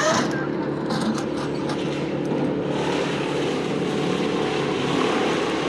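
A large engine running steadily at an even speed, with a few light knocks in the first couple of seconds.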